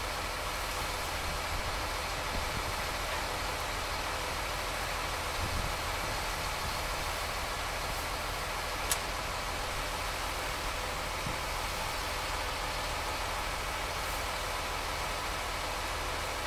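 Heavy equipment engine idling steadily, with one sharp click about nine seconds in.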